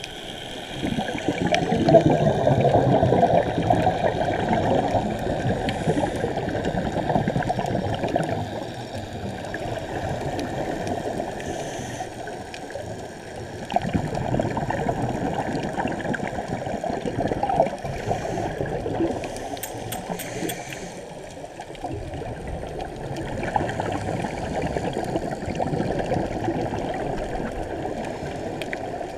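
Scuba diver's exhaled bubbles gurgling and rushing past an underwater camera, swelling in surges every ten seconds or so.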